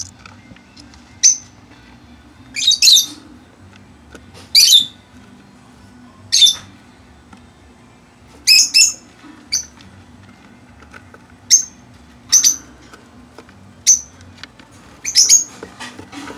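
Lovebirds giving short, shrill chirping calls, about a dozen spaced a second or two apart, some in quick pairs.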